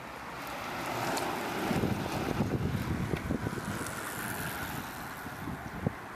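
Racing recumbent trikes passing close by: tyre and drivetrain noise swells over about two seconds, peaks, then fades as they go away, with wind buffeting the microphone.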